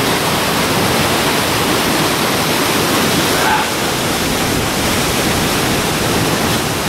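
Whitewater of a river cascade rushing steadily down a granite chute into a pool, a loud, even rush of falling water with no distinct splash standing out.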